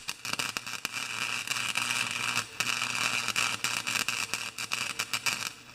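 Electric arc welding: a steady crackling hiss with many irregular pops while the arc burns, cutting off near the end.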